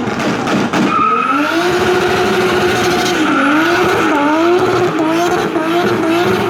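McLaren P1's twin-turbo V8 hybrid powertrain running loud under acceleration, its pitch climbing from about a second in and then dropping back and rising again several times, like quick gear changes.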